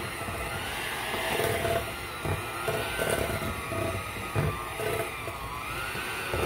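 Old electric hand mixer running in a stainless steel bowl while beating flour into cookie dough, its motor whine wavering in pitch as the load changes. The beaters knock against the bowl now and then.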